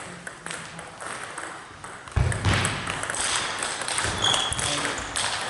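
Table tennis rally: a celluloid ball clicking off bats and the table in short sharp knocks, with a loud low thump about two seconds in.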